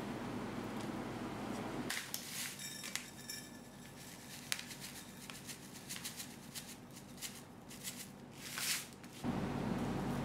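Dry breadcrumbs poured into a glass bowl: scattered light ticks and crackles, with a short hiss near the end of the pour. A steady low hum runs before and after the pour.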